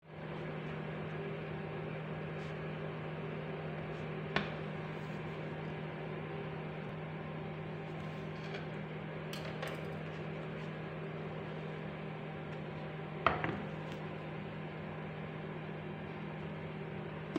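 A steady low machine hum, like a kitchen appliance or fan running, with a couple of sharp knocks of a knife against a wooden bowl while a steamed leaf-wrapped rice cake is cut, the louder knock about thirteen seconds in.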